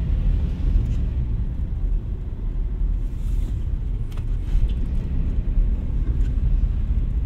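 Cabin noise of a 2003 Suzuki Escudo on the move, its 1.6-litre G16B four-cylinder engine and the road making a steady low rumble.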